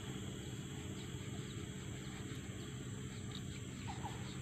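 Tropical forest ambience: a steady drone of insects with a few short bird chirps, a pair of them about four seconds in.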